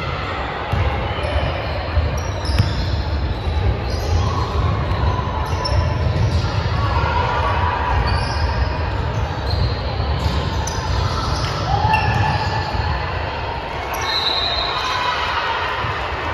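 A basketball being dribbled and bouncing on a hardwood gym floor during play, with sneakers squeaking and players and spectators calling out, echoing around a large gym.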